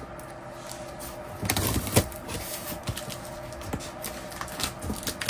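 Hands handling a cardboard shipping box: rustling and scraping with scattered clicks and taps, the loudest a scrape ending in a sharp click about two seconds in.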